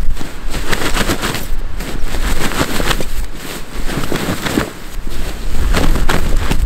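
Green sleeping bag's shell fabric rustling and crackling close to the microphone as it is handled and shaken out, in a dense, irregular run of crackles.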